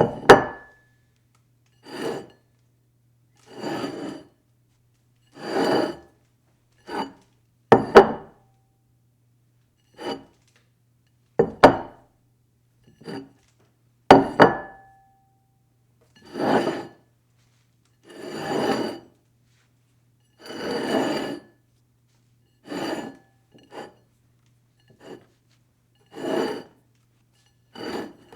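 A dish sliding on a table, over and over: each slide is a short scrape of about half a second to a second, one every one to two seconds. A few slides start with a sharp clink that rings briefly.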